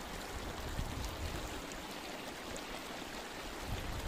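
Glacier meltwater stream running steadily over stones and gravel.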